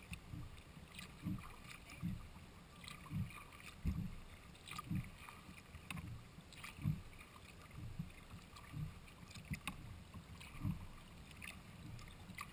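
Kayak paddling on flat calm water: paddle strokes about once a second, each a low thud carried through the hull with a light splash of the blade.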